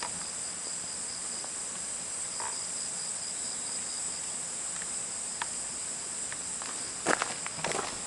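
A steady, high-pitched chorus of insects chirring, with a few footsteps near the end.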